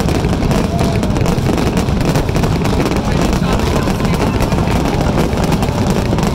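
Dense fireworks barrage: many shell bursts and crackles running together into a steady, deep rumble, with no single bang standing out.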